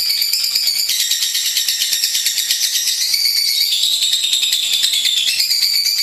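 Lovebird chattering without a break: a fast, dense run of shrill, high-pitched chirps and trills, the pitch dropping slightly for a stretch past the middle.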